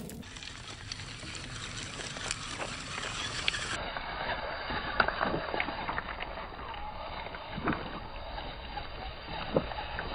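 Stones clicking and knocking as a radio-controlled truck drives over loose river cobbles, its tyres shifting the rocks at irregular moments, over a steady background noise.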